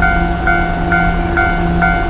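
Japanese level-crossing warning bell ringing, a repeating electronic clang about twice a second, over a steady low hum.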